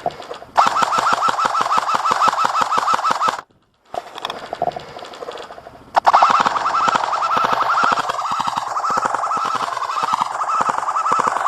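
Airsoft electric gun (AEG) firing full-auto in two long bursts, a rapid even rattle of shots with a whine from the gearbox. The first burst lasts about three seconds; after a short silence, the second starts about six seconds in and runs on.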